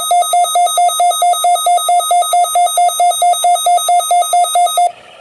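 Weather radio receiver's alert beeping rapidly, a buzzy mid-pitched tone pulsing about five times a second, set off by a weekly test broadcast. It cuts off suddenly shortly before the end.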